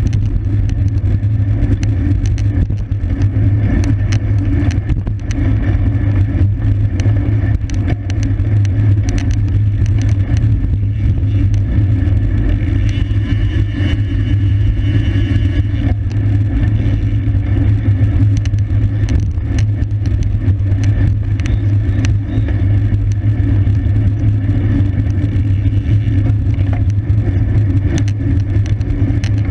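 Wind rushing over the microphone of a bicycle-mounted camera at racing speed: a loud, steady low rumble, with scattered clicks and rattles from the bike and road.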